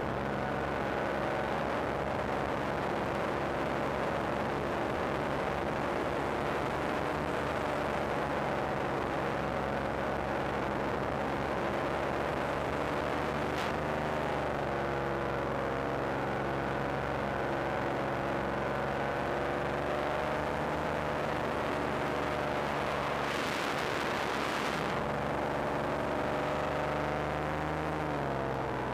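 Paramotor engine and propeller running steadily at cruise, with a steady pitched drone and a rush of airflow. A brief louder hiss of wind noise comes about two-thirds through, and the engine note drops slightly near the end as the throttle eases.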